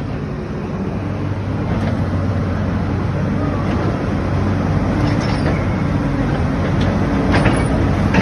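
Hyundai excavator's diesel engine running steadily with a low hum, slowly getting louder, with a few sharp metallic knocks near the end.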